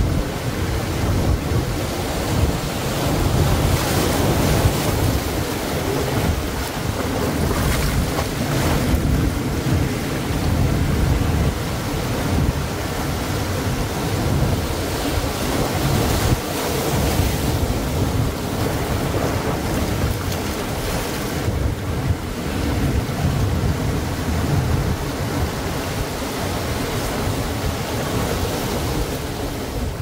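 Ocean surf breaking and washing up the beach: a continuous rush of waves that swells and eases.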